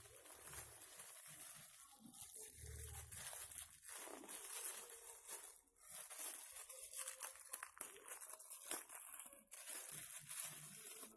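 Clear plastic wrapping crinkling and tearing as it is pulled off a rolled cloth baby sling, in irregular crackly rustles.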